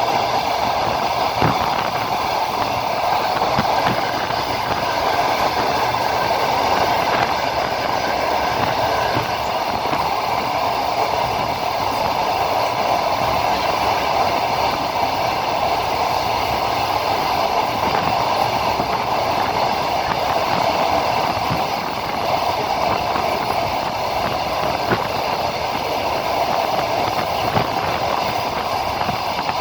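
Passenger train running on the line, heard from inside the carriage: a steady rumble and rattle of wheels on rails, with scattered clicks of the wheels over rail joints.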